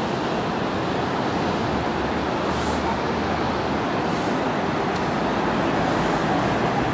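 Steady outdoor city background noise: an even, unbroken roar like traffic.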